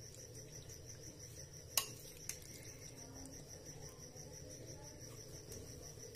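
Two light clicks of a serving spoon against a plate about two seconds in, with a sharper clink right at the end, over a faint, evenly pulsing high-pitched trill and a low hum.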